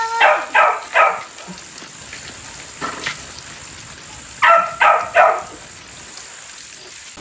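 Dog barking in two bursts of three quick barks, about four seconds apart, over the steady patter of light rain.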